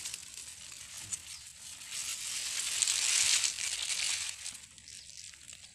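Dry grass stalks and leaf litter rustling and crackling as hands work in them, loudest between about two and four seconds in, then fading.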